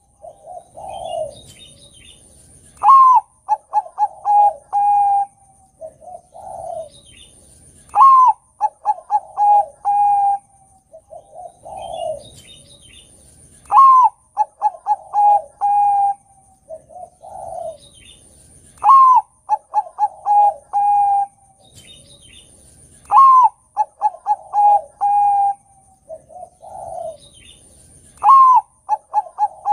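Bangkok-strain zebra dove (perkutut, Geopelia striata) singing its cooing song: a loud phrase about every five seconds, about six in all, each a rising first note, a quick run of short coos and a long held final coo.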